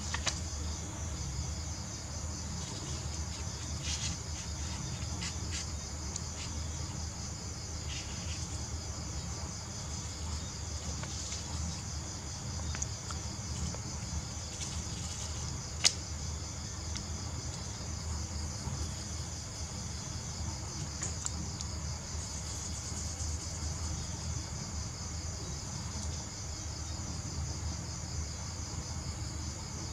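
Crickets chirping steadily in the background over a low hum, with faint rustles of paper being folded and one sharp click about halfway through.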